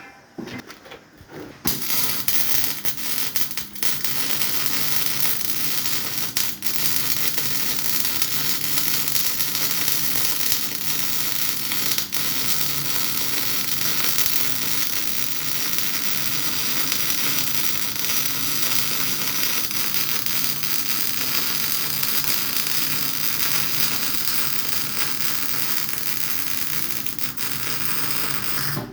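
MIG welding arc crackling steadily while a vertical-position test weld is run. It starts after a couple of short sputters about two seconds in and cuts off abruptly at the end.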